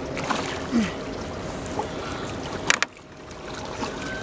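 Steady wind and water noise around a small boat on a river, with one sharp knock about two-thirds of the way in.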